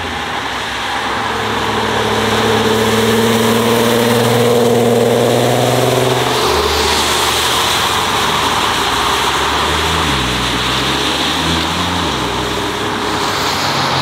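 Volkswagen Golf engine accelerating, its note climbing slowly for about six seconds, then giving way to a louder rushing exhaust sound whose pitch dips and recovers twice in the second half.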